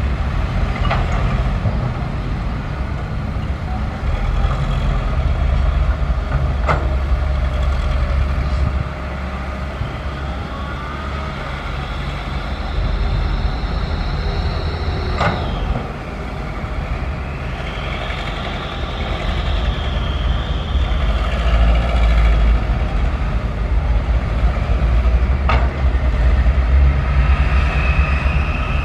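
Sany SY135F excavator working: its diesel engine runs steadily under load, with a whine that rises and falls as the hydraulics move. Four short, sharp knocks stand out, the loudest about halfway through.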